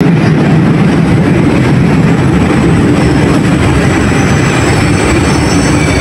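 Metro train running with a loud, steady rumble and faint high whines over it.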